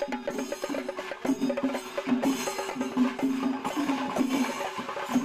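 Background music: quick percussion strokes over held pitched notes, with a steady beat.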